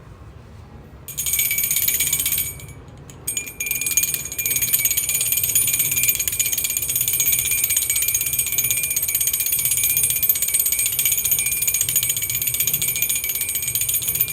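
Puja hand bell (ghanti) rung rapidly and continuously during aarti, with a bright, high metallic ring. It starts about a second in, stops briefly near the three-second mark, then rings on.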